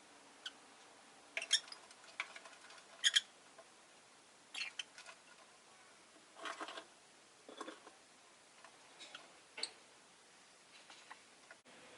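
Rosy-faced lovebird making short, sharp chirps and clicks, about a dozen scattered irregularly, with a slightly longer rasping one about halfway through.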